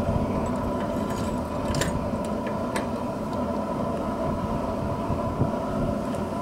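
Small forge fire burning with a steady rushing sound and a faint steady hum. A few light metal clicks come in the first few seconds as tongs set a piece of leaf-spring steel into the fire to heat.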